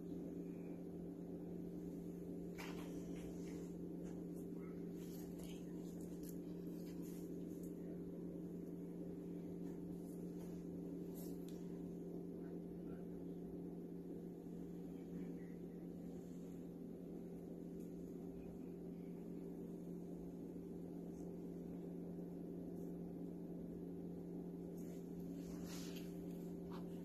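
A steady low electrical hum, with a few faint clicks.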